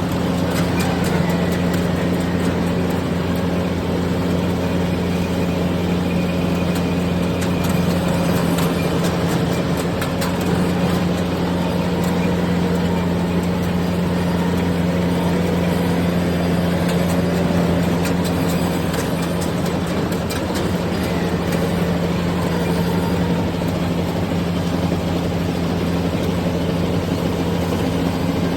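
Yanmar 820 rice combine harvester running steadily while harvesting, a constant engine drone with a strong low hum.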